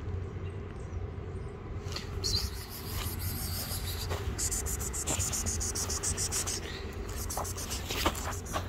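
Footsteps crunching on dry grass and dirt, with scratchy rustling and a few sharp clicks, over a steady low rumble. A louder stretch of high scratchy hiss comes in the middle.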